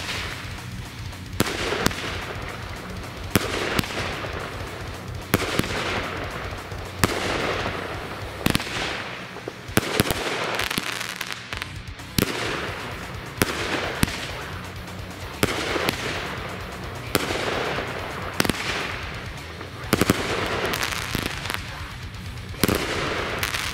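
Black Cat Redneck Finale, an 18-shot 200-gram consumer fireworks cake, firing shot after shot. A sharp report comes roughly every one to two seconds, each followed by a fading crackle.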